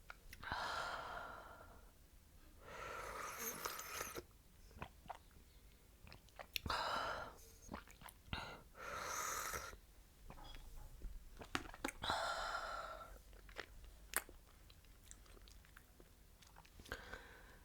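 Close-miked chewing with small wet mouth clicks, broken every two to four seconds by a breathy rush of about a second.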